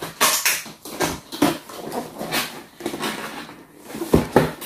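A large cardboard toy box being handled and turned on a tabletop: hands scuff and rub across the cardboard, with a string of irregular scrapes and a few knocks.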